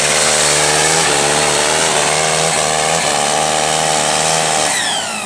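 Pulling tractor's diesel engine at full throttle hauling the weight sled, a loud, steady engine note that drops and falls in pitch near the end as it throttles back.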